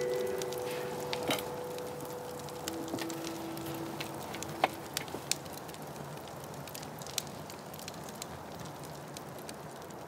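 Wood campfire crackling, with scattered sharp pops and snaps over a steady hiss. A few soft held musical tones die away in the first seconds.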